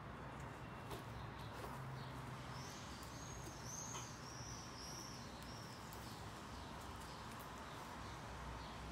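Quiet room with faint rubbing and tapping of gloved hands on the drysuit's rubber. A bird gives a quick series of about six high chirps, starting about two and a half seconds in.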